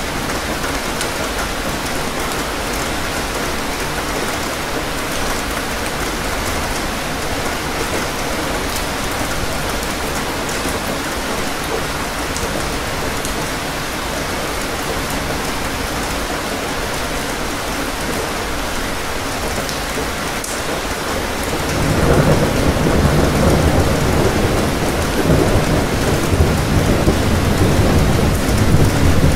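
Steady rain falling. About two-thirds of the way through, a deep rumble of thunder builds and rolls on under the rain.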